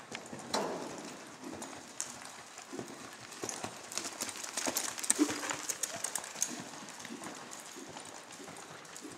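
Hoofbeats of a ridden horse moving over the sand footing of an indoor arena: irregular soft knocks, loudest a little past the middle as the horse passes close.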